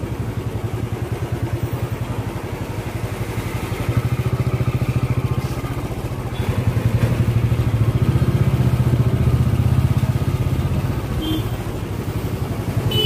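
A small engine running steadily with a fast, even pulsing beat, growing louder about four seconds in and again from about seven seconds.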